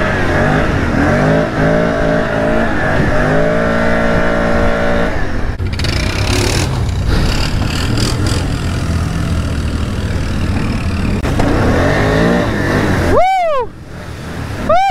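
ATV engine revving under load, its pitch climbing over the first five seconds, then running steadily. Near the end come two short, high tones that rise and fall.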